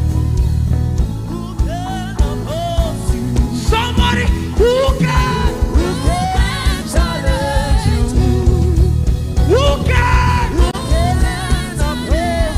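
Live gospel worship music: a band with bass and drums keeping a steady beat under a singer's sustained, wavering vocal lines.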